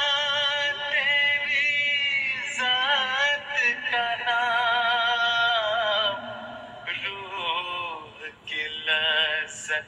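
A solo voice singing a hamd, a devotional song in praise of God, in long held notes that waver in pitch. It is quieter and more broken up after about six seconds.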